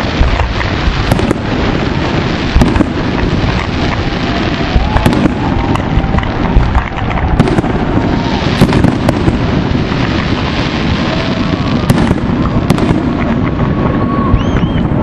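Fireworks display: aerial shells bursting overhead, sharp bangs every second or two over a continuous rumble of crackle and thuds.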